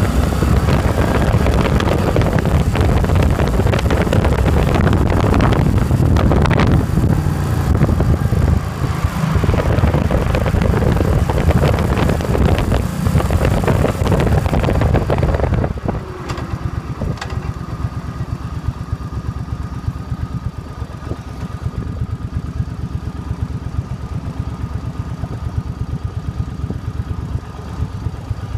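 2005 Suzuki Boulevard C50's 805 cc V-twin engine running under way with heavy wind rush over the handlebar-mounted phone's microphone. A little past halfway the noise drops suddenly and the engine settles to a steady idle as the bike stops.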